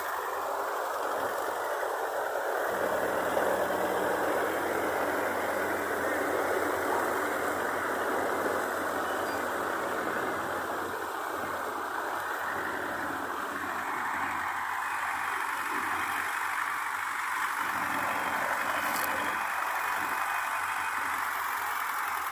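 Heavy farm machinery engine running steadily, a low engine hum joining the broad machine noise about two and a half seconds in.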